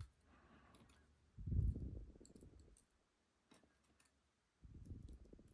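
Small scattered clicks and taps of small lock parts being handled during reassembly, with two dull low bursts of handling noise.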